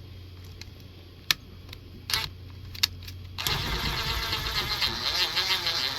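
A few light clicks and taps, then about halfway through a power drill starts driving a self-tapping screw through the antler into the plastic skull, its motor running steadily and dipping in pitch as the screw bites.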